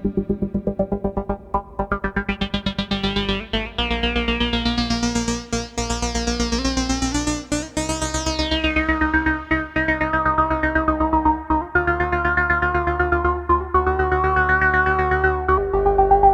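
Yamaha CS10 and CS01 analog monophonic synthesizers playing a sequence triggered by a drum machine. Fast pulsing notes give way to held notes, and the tone brightens and then darkens again as a filter sweeps open and closed.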